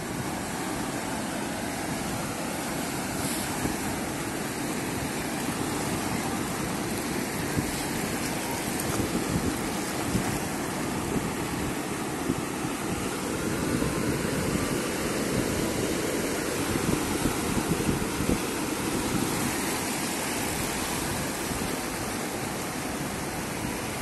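Small waves washing in over and around coral rocks in shallow water: a steady rushing surf that swells and ebbs.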